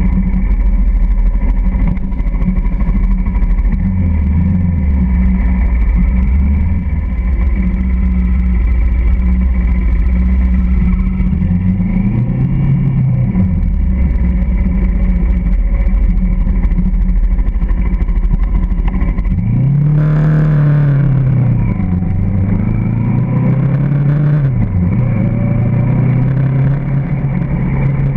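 Motorcycle engine running as the bike rides off and gets up to speed, its pitch rising and falling several times with the throttle and gear changes, with the biggest rev about two-thirds of the way through, then settling into a steadier, higher hum.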